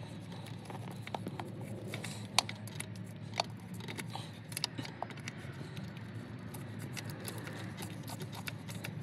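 Light, scattered metallic clicks and taps of a socket, swivel and extensions knocking against a Honda K-series engine as a knock sensor is fished down and started into its threads by hand, over a steady low hum.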